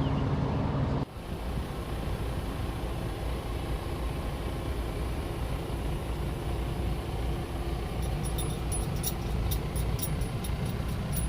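Heavy diesel truck running with a steady low rumble. The sound changes abruptly about a second in, and faint light ticking comes in over the last few seconds.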